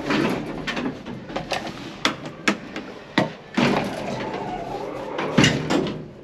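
A series of irregular sharp knocks and clacks of hard objects, about ten, the loudest about five seconds in, with brief scraping or rustling noise between them.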